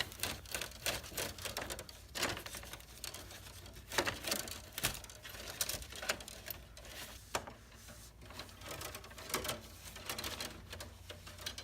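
Irregular light clicks, taps and scrapes of electrical cable being handled and routed behind the existing wiring inside a metal breaker panel.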